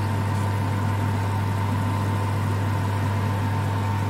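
A motor running steadily: a low hum with a constant higher whine above it.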